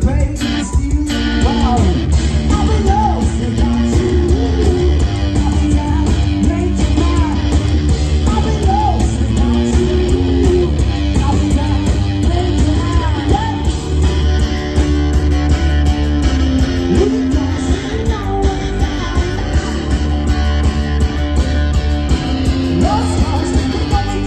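Live rock band playing loud: electric guitar over drums.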